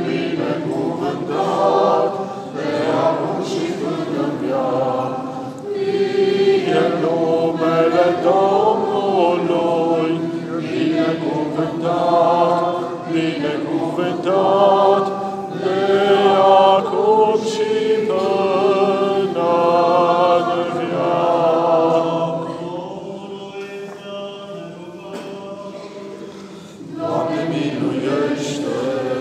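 Choir singing Orthodox liturgical chant unaccompanied, several voices holding and moving through long notes. The singing drops lower a little past two-thirds of the way through, then swells again near the end.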